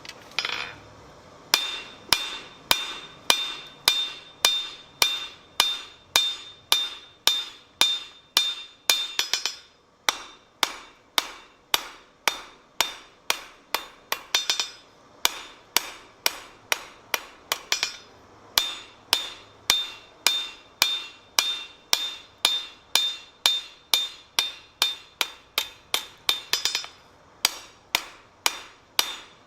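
Blacksmith's hand hammer striking steel on an anvil in a steady rhythm of about two blows a second, each blow ringing. A few times the rhythm breaks into a short flurry of quick, lighter taps.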